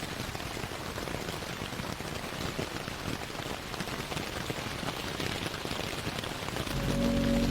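Rain sound effect: a steady, even patter of rain falling on a surface. Near the end, sustained low notes of a slowed, reverb-heavy ambient track swell in over the rain and become the loudest sound.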